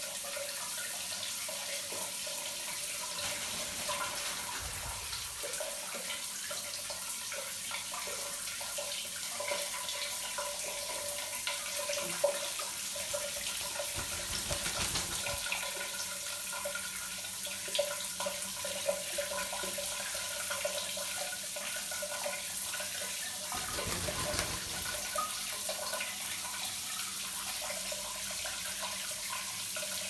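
Water running steadily, an even hiss throughout, with a few faint clicks.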